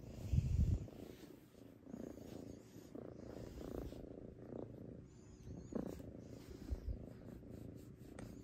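Domestic cat purring steadily close up while being stroked, the low rumble swelling and easing with its breathing. A loud low thump comes about half a second in.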